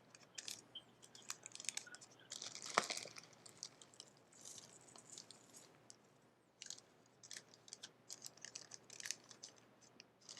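Computer keyboard typing: faint, irregular keystroke clicks.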